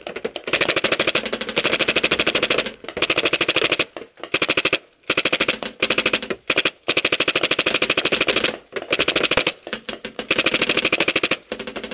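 Rap4 M60 paintball machine gun firing long bursts of rapid automatic fire, with several brief pauses between bursts.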